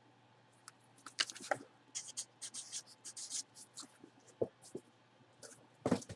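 Felt-tip marker writing in a quick run of short scratchy strokes, followed by a few light ticks and a knock near the end.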